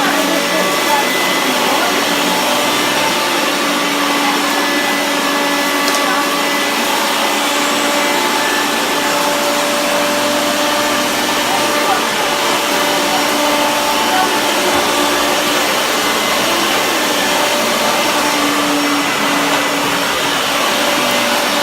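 Hoover Turbopower 1 Freedom vacuum cleaner running steadily: a constant rush of air with a steady motor whine.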